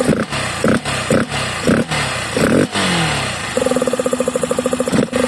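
Yamaha Factor 150's single-cylinder engine revved in a series of short throttle blips, then settling back to a steady idle about three and a half seconds in. It runs with the airbox cover removed and a sport air filter fitted, which makes the intake noise louder.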